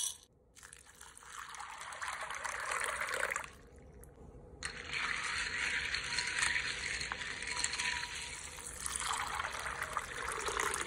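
Water poured over dried chickpeas in a glass bowl, and the chickpeas stirred in it with a wooden spoon: a pouring, trickling hiss with light clicks. It breaks off for about a second roughly three and a half seconds in.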